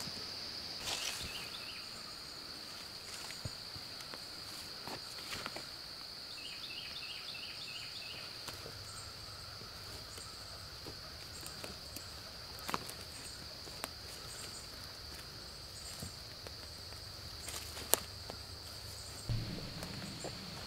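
Footsteps moving through leaf litter and undergrowth on a forest floor, with scattered small cracks and rustles, over a steady high insect drone. A short run of chirps comes twice early on the walk. One sharp crack near the end is the loudest sound, followed by a dull thump.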